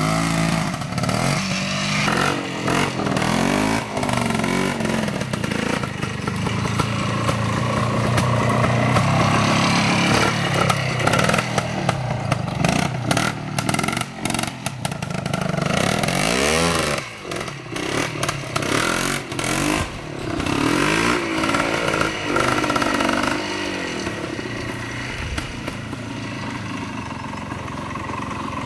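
Vintage trials motorcycle engine blipped up and down over and over as the bike climbs a steep slope, with frequent clattering knocks. The engine settles to a quieter, steadier run near the end.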